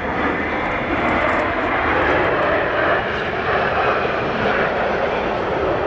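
Jet engines of the Patrouille de France's Alpha Jet trainers flying past: a steady, loud rushing noise that swells a little about two seconds in.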